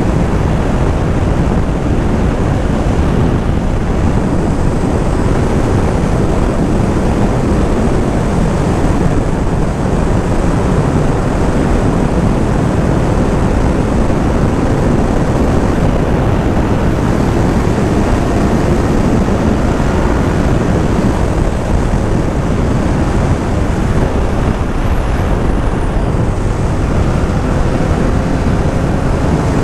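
Motorcycle being ridden at speed: a steady rush of wind over the helmet camera with the engine running underneath, its pitch rising slightly near the end.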